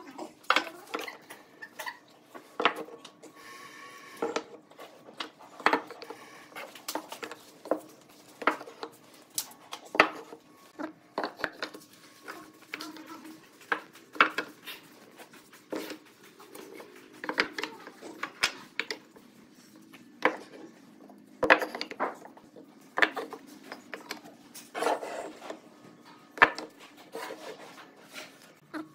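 Wooden boards being set down and stood up against each other on a wooden workbench: irregular knocks and clacks of wood on wood.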